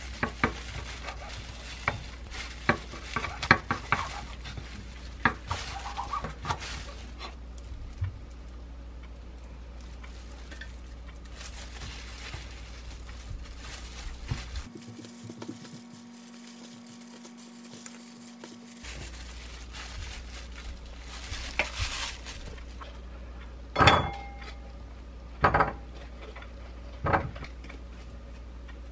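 Kitchen knife slicing through a kimbap roll, its blade knocking on a wooden cutting board in a run of short sharp taps. Later come a few louder knocks and clinks of dishes being handled.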